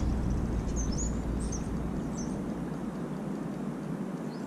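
Riverbank ambience: a steady rush of flowing water under a low rumble that fades after about two and a half seconds, with a few short, high bird chirps in the first half.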